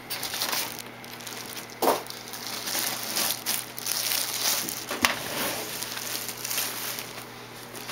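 Clear plastic wrap crinkling as a wrapped computer case is handled, with two sharper clicks about two and five seconds in.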